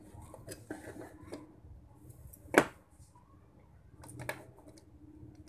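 Light clicks and rattles of a hand mixer's motor and gear assembly being handled on a wooden workbench, with one sharp click about two and a half seconds in, the loudest sound, and a few more clicks near the end.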